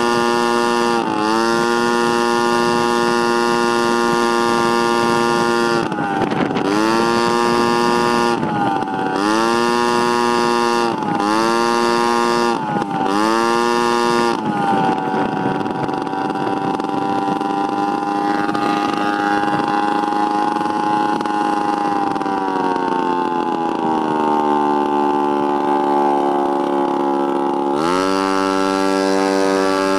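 Honda Urban Express's 49cc two-stroke engine under way, its pitch held high and steady, dipping briefly and recovering several times. It then runs at a lower pitch, sinks further as the scooter slows, and climbs sharply near the end as it speeds up again.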